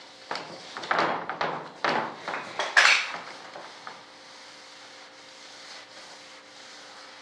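Hand rubbing and wiping across the surface of a composite wing mold: a few quick scuffing strokes in the first three seconds, the loudest about three seconds in, then only a faint steady hum.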